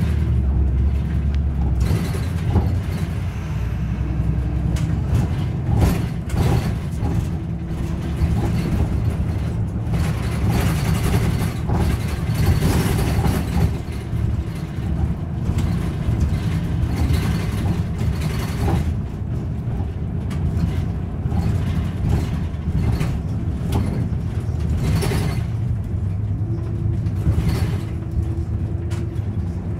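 A Kobe City Bus heard from inside the cabin while driving: its engine runs steadily with road noise. Several brief, sharper noises stand out over the rumble.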